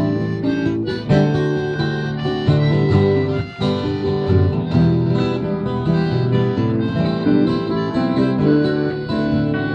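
Country band playing an instrumental break between sung verses: acoustic guitar strumming with harmonica.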